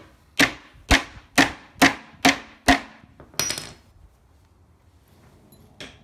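Claw hammer driving a nail into a wooden pallet slat: six sharp strikes at about two a second, then a short clatter about three and a half seconds in and a pause of about two seconds.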